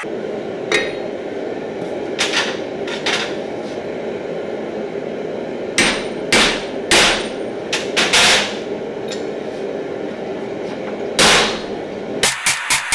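Hand-hammer blows on steel at the anvil: about eight irregular strikes, some ringing briefly, over a steady rushing background.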